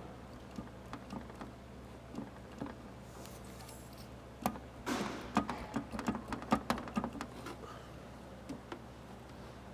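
A quick run of light clicks and knocks, like hard objects being handled, lasting about three seconds from roughly halfway through, with a few scattered ticks elsewhere over a steady low hum.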